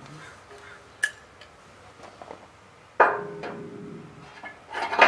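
Metal clanks from parts and tools being worked onto a car frame: a light click about a second in, then a hard metal strike about three seconds in that rings on briefly, and another loud clank near the end.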